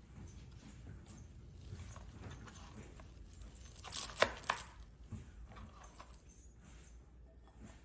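Quiet kitchen handling sounds with two sharp knocks about four seconds in, the loudest moment.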